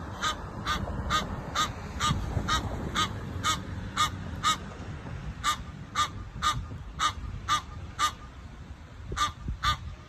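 Egyptian geese honking in a rapid repeated series, about two calls a second, with a short break about halfway through and another near the end. It is agitated calling at a squirrel intruding on their space.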